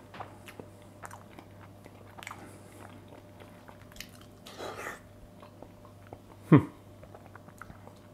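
A person biting and chewing salt-baked chicken eaten by hand, with many small wet mouth clicks. About six and a half seconds in comes a short voice sound sliding steeply down in pitch, the loudest moment.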